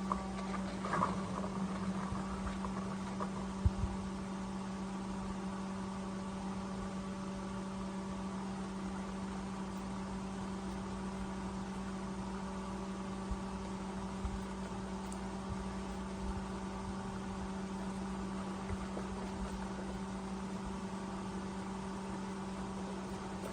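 A steady electrical hum with several overtones, with a few light knocks in the first four seconds.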